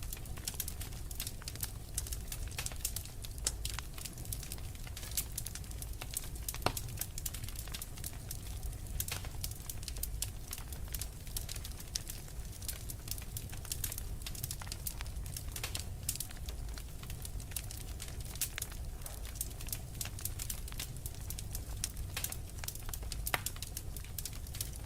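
Fireplace fire crackling: frequent irregular snaps and pops over a low steady rumble.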